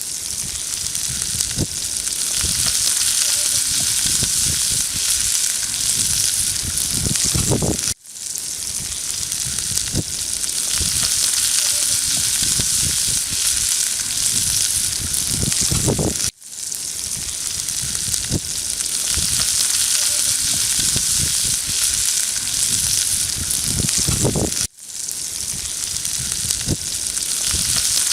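Food sizzling in a cast iron skillet over a campfire: a steady, dense hiss with low crackles. It cuts out briefly three times, about every eight seconds.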